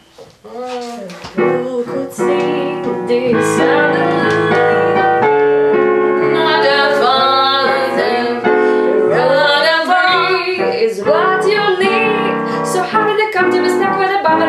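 A young woman singing a jazz song in English to piano accompaniment; it starts softly and the piano chords fill out about three seconds in.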